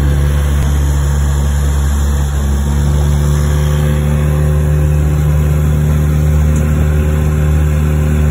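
Small tiller-steered outboard motor running steadily at speed, pushing the boat through choppy water, with a slight rise in engine pitch about three seconds in.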